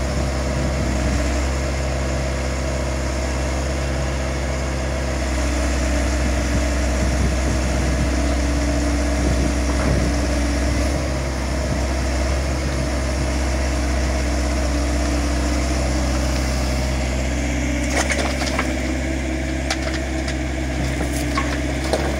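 XCMG XE60G mini excavator's diesel engine running steadily, with a higher tone coming and going as the arm and bucket work. Near the end, a cluster of sharp knocks and clatter as the bucket unloads soil and rubble into the dump truck's steel bed.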